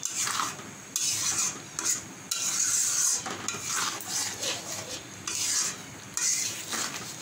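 A metal spatula stirring and scraping through thick sugar syrup and mango pieces in a pan, in repeated irregular strokes about once a second.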